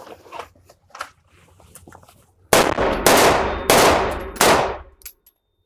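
Four AR-15 rifle shots fired in quick succession, about half to three quarters of a second apart, starting a little past the middle, each trailing a long echo of the indoor range. Before them come light clicks of rifles and magazines being handled.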